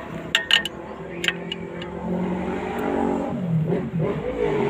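A few sharp metallic clicks, then an engine-like running sound that grows louder about two seconds in, its pitch dipping and rising again near the end.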